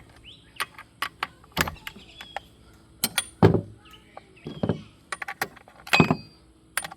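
Scattered clicks, taps and a few louder knocks of hand tools and metal parts being handled while the clutch cover of a Farmertec G466 Pro chainsaw is taken off.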